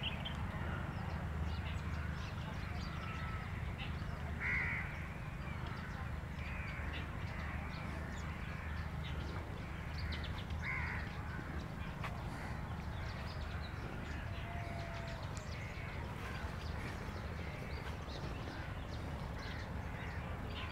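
Birds calling: scattered short calls throughout, with two louder calls about four and a half and eleven seconds in, over a steady low rumble.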